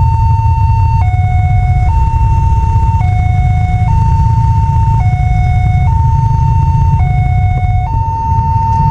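Railway level-crossing warning siren: an electronic two-tone alarm stepping between a higher and a lower tone about once a second, the signal that a train is approaching and the barrier is down. A loud steady low rumble runs underneath.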